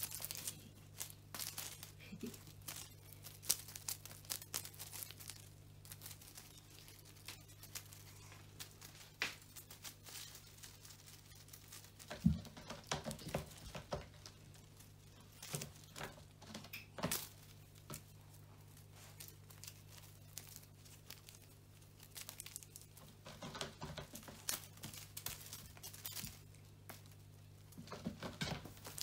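Wand cat toy's curled ribbons and feathers crinkling and rustling as a cat grabs and bites at it, with scattered taps and scrapes of paws on a sisal-wrapped cat tower. There is a sharper thump about twelve seconds in, over a steady low hum.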